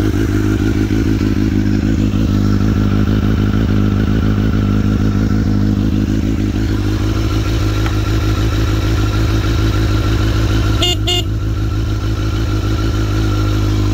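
1991 Kawasaki ZX-7's 750 cc inline-four engine idling steadily with the choke on.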